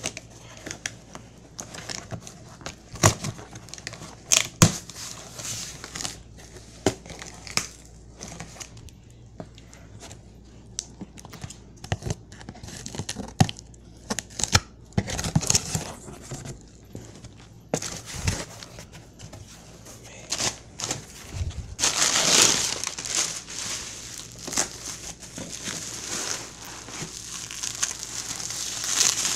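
A cardboard shipping box being opened by hand: packing tape ripping and cardboard flaps knocking, in scattered sharp bursts. About three-quarters of the way through, packing material crinkles more continuously.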